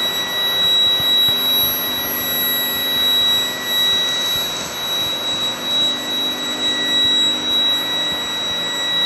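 Induction hardening and tempering line running: a steady mechanical roar with a constant high-pitched whine laid over it.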